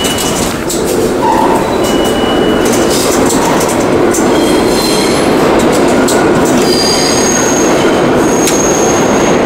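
New York City subway train running through the station, a loud steady rumble with thin high-pitched wheel squeals from about four seconds in.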